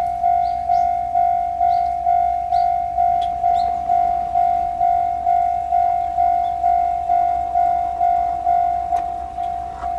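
Japanese railway level-crossing warning bell ringing, a steady electronic ding repeated about twice a second, each ding fading away: the signal that a train is approaching and the crossing is closed.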